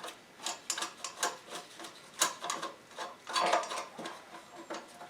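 Irregular clicking and clunking of parts being handled on a small lawn mower engine, in uneven clusters with louder knocks about two seconds in and again past the middle.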